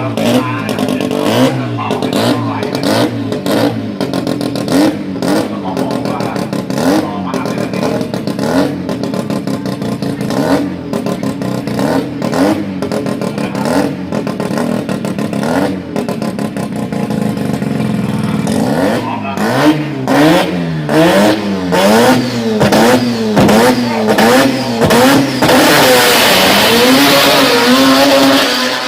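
A turbocharged rotary engine in a Toyota Corolla KE30 drag car, running with a rapid, choppy popping for the first two-thirds. It is then revved up and down again and again, and near the end gives way to a loud, steady rush of noise.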